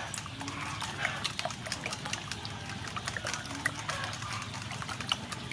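Raw eggs and seasonings sloshing in a stainless steel bowl as a metal whisk beats them, with a quick, uneven run of clicks from the whisk striking the bowl.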